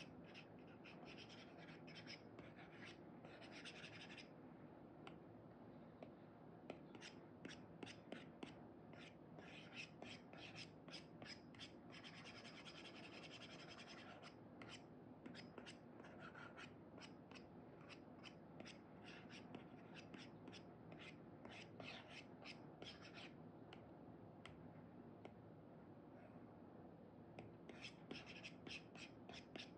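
Faint scratching of an Apple Pencil 2 nib stroking across a paper-like screen protector on an iPad, in quick runs of short strokes with one longer stroke near the middle. A lull of a few seconds comes late on, then quick strokes start again near the end.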